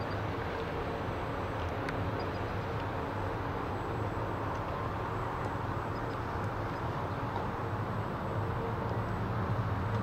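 Steady low rumbling outdoor background noise with a light hiss over it and no distinct events.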